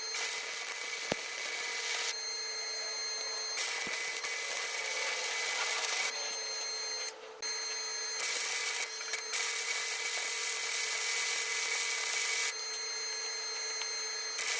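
Electric welding arc crackling and hissing as a cut steel pedal is welded back together, laid down in a series of short welds of one to a few seconds each with brief breaks between, over a steady hum.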